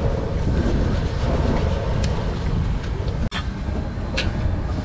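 Steady low rumbling background noise at a street food stall. It cuts out for an instant about three seconds in, and a few light clicks come near the end.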